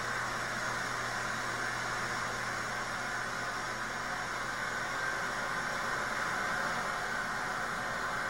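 Steady hiss with a faint low hum.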